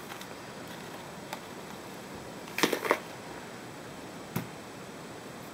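Salt container being handled and shaken over a glass measuring cup: a few faint clicks, then a short cluster of rattling knocks about two and a half seconds in, over steady room hiss.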